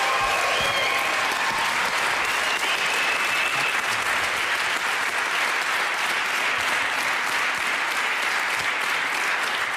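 Audience applauding steadily after a speaker is introduced.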